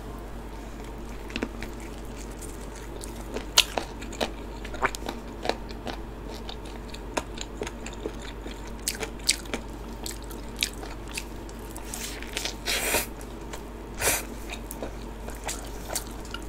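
Close-up crunching and chewing of crispy cheese-powdered fried chicken, a drumstick being bitten and eaten: many sharp, irregular crackles of the fried coating breaking.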